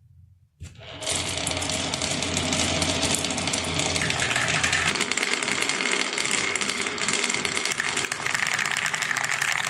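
Many marbles clattering and rolling down a wooden marble run in a dense, continuous rattle of rapid clicks, starting about a second in.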